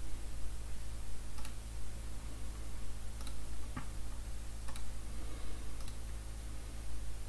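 Computer mouse clicking about five times, isolated sharp clicks spread over a few seconds, over a steady low hum.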